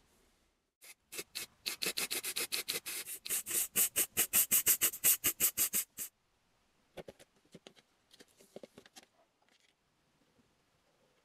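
Microfiber cloth rubbed quickly back and forth over a steel cleaver blade, about five strokes a second, getting louder and stopping abruptly about six seconds in. A few faint handling rustles follow.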